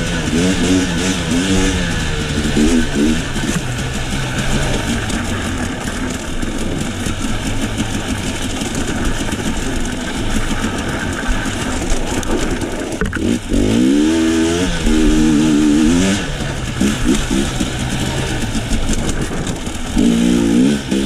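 KTM enduro dirt bike engine pulling along a trail, its revs rising and falling with the throttle, with a sharp climb in revs about 13 seconds in and again near the end, over a steady rushing noise.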